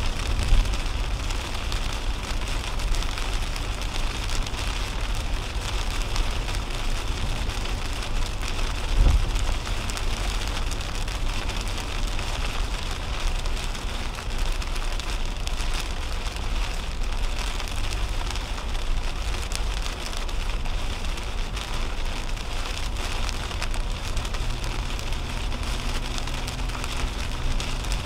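Heavy rain on a 2010 Toyota Camry, heard from inside the cabin, over the steady hiss of tyres on a wet highway. There is a low thump near the start and another about nine seconds in.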